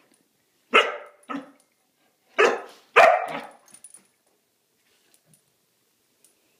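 Dog barking during play over a toy: four barks in the first few seconds, two close together, a pause, then two more, the last the loudest.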